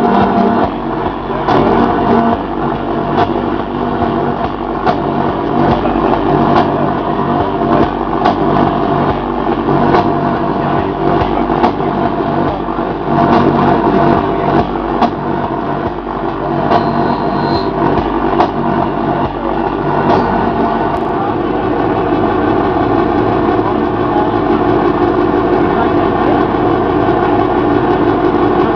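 Live electronic noise music from modified music equipment: a loud, dense drone of many layered steady tones, broken by irregular clicks and crackles. About three-quarters of the way through, the clicks stop and the drone evens out into a smoother hum.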